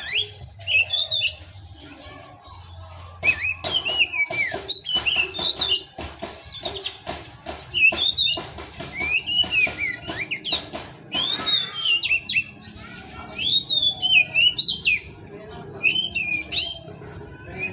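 Oriental magpie-robin (kacer) singing in bouts of quick, varied whistles, sweeping notes and chirps, with short pauses between the phrases.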